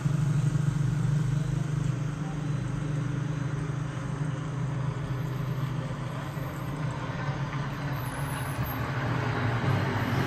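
Motor vehicle engine running on the road close by, a steady low hum that eases off midway and builds again near the end.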